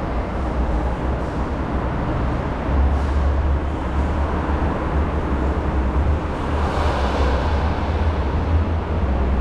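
Steady road traffic noise with a deep rumble underneath, and a louder swell, like a vehicle passing, about seven seconds in.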